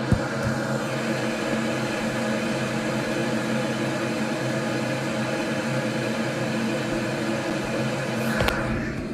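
A steady droning hum with a sharp click at the start and another near the end.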